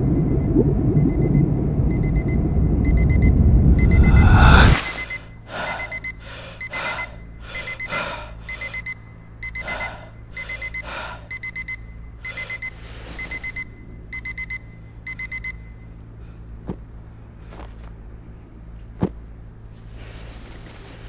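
Digital alarm clock beeping, a high beep in quick groups about once a second. At first it sounds under a deep rumble that cuts off suddenly about five seconds in; then it rings on over short rustling sounds before stopping about three quarters of the way through, followed by a couple of faint clicks.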